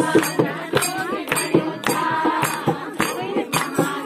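Kirtan: group devotional singing over a steady hand-percussion beat, about two beats a second.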